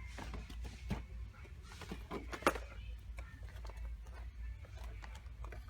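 Store background: a steady low hum with faint distant voices and scattered light clicks and knocks, one sharp click about two and a half seconds in.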